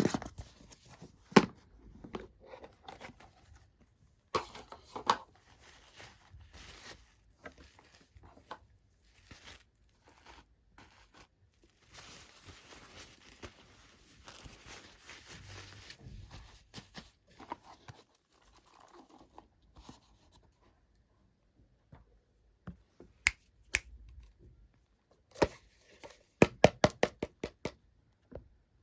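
Toy packaging being opened by hand: plastic and paper tearing and crinkling, with scattered light taps and clicks and a quick run of clicks near the end.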